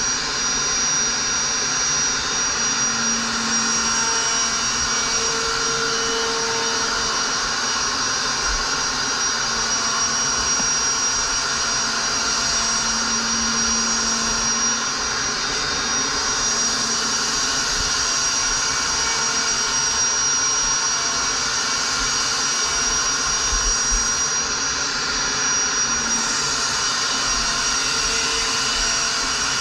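Electric plunge router running at a steady high whine, its bit cutting through a foam surfboard blank as it is pushed along a profiling jig to shape the deck.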